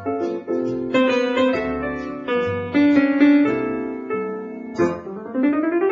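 Piano playing a Broadway show-tune medley: a melody over changing chords, breaking into a quick rising run of notes near the end.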